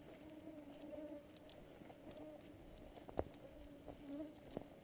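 A flying insect buzzing close to the microphone, a steady hum that wavers slightly in pitch. Two sharp clicks come about three seconds in and near the end.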